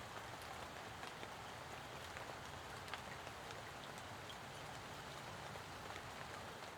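Steady rain falling on a pond: an even hiss of patter with many small individual drop ticks, one sharper tick about three seconds in.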